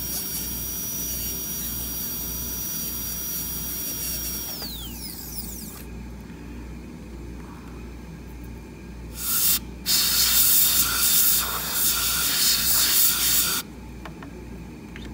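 High-speed dental handpiece whining steadily with the bur cutting the cavity preparation, then winding down to a stop about five seconds in. Later a short blast of air hissing, then a longer one of about three and a half seconds.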